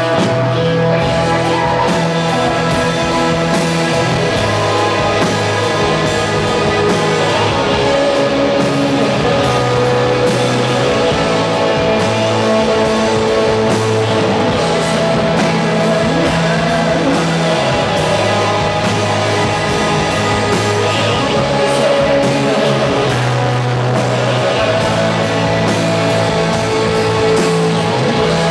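Live rock band playing loud, with distorted electric guitars, drum kit and keyboard over held bass notes that change every few seconds.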